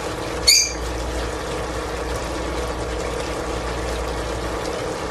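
Steady hum and hiss at the stove while pork cooks in a pot. A single short, high squeak stands out about half a second in.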